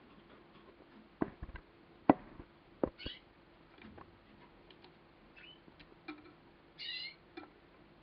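Male Gloster corona canary giving short, warbling chirps, one about three seconds in and a longer one near the end, among a handful of sharp taps and clicks. The loudest tap comes about two seconds in.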